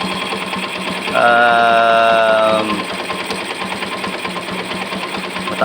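Yamaha FZ16's single-cylinder four-stroke engine idling steadily, a fast even chugging; the carburettor's overly rich fuel mixture has just been corrected, and the idle is now smooth. About a second in, a drawn-out vocal 'ehh' sits over it for about a second and a half.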